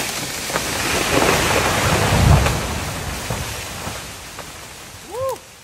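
A large tree falling: a building crash of breaking wood and branches that peaks in a heavy impact about two seconds in, then fades away.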